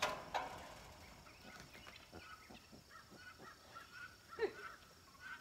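Geese honking faintly: a string of short, repeated honks, with one louder call falling in pitch about four and a half seconds in.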